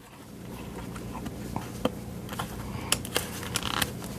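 Handling noise from a BSIDE multimeter being worked out of its tight rubber holster: rubbing and scraping with a series of sharp plastic clicks.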